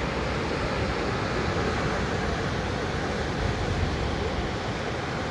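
Steady rush of ocean surf breaking on the beach, mixed with a low, uneven rumble of wind on the microphone.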